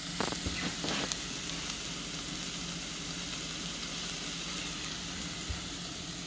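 Diced carrots, celery and onion sizzling steadily in an enameled pot, with a few light clicks and scrapes of a silicone spatula against the pot in the first second.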